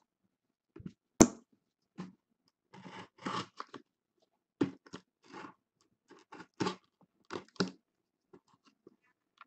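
Cardboard case and box cutter being handled: one sharp click about a second in, then a string of short scrapes and rustles.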